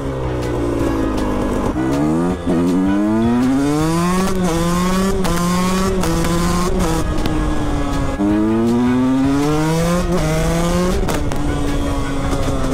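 KTM 125 SX two-stroke single-cylinder engine accelerating hard through several gears. The pitch climbs and drops back at each upshift, eases off, climbs again, then holds steady near the end.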